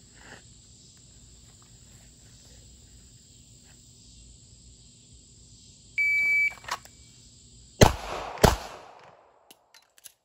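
A shot timer beeps once, a high tone about half a second long, about six seconds in. Then two sharp shots from a Sig Sauer P365 XL pistol ring out less than a second apart, a little under two seconds after the beep.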